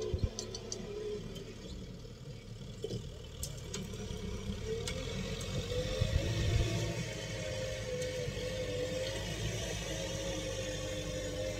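Kubota tractor's diesel engine running steadily under load while plowing, its pitch rising slightly about five seconds in. A few low bumps on the microphone.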